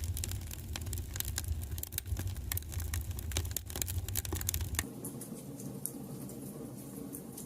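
Wood fire crackling and popping in a fireplace, with dense sharp snaps over a low rumble. About five seconds in the rumble cuts off suddenly and the crackling goes on sparser and softer.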